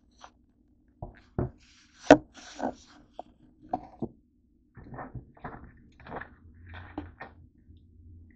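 Handling noises on a wooden desk as the camera and a plastic soda bottle are moved about: a run of sharp knocks and thuds, the loudest about two seconds in, then softer scuffing and clatter until near the end.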